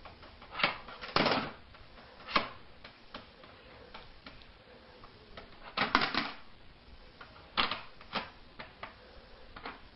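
A string of irregular taps and clicks, with a few louder knocks among them.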